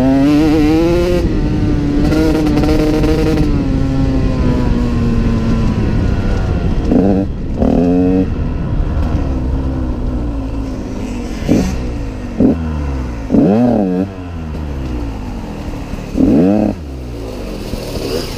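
KTM 150SX single-cylinder two-stroke dirt bike engine being ridden. The revs climb at the start and are held while easing off slowly, then come several short, sharp throttle blips that rise and fall in pitch.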